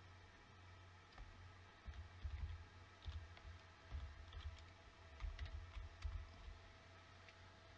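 Faint, irregular clicking and tapping of a computer keyboard and mouse, a few clicks a second in uneven clusters.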